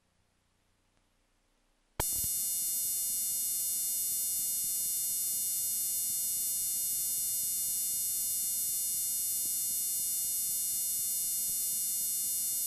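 Near silence, then about two seconds in a loud, steady electrical buzz switches on abruptly and holds unchanged: the playback noise of a blank, unrecorded stretch of videotape.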